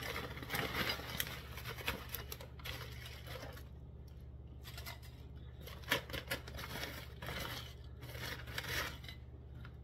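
A bag of almond-flour tortilla chips crinkling as the chips are shaken and picked out onto a plate, in scattered rustles with a couple of sharper clatters about six seconds in. A steady low hum runs underneath.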